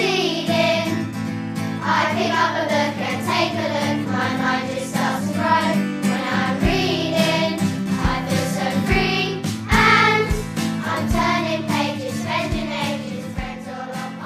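Children's song with sung vocals over a steady backing, a low drum beat joining about halfway through.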